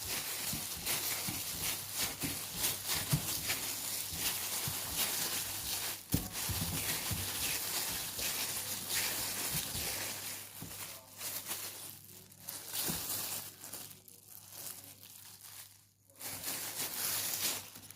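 Crinkling, rustling handling noise made of many small crackles, busiest through the first half and thinning out in the last several seconds, over a steady low hum.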